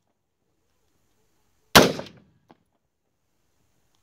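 A single AR-15 rifle shot a little under two seconds in: one sharp crack that dies away over about half a second, followed by a faint tick.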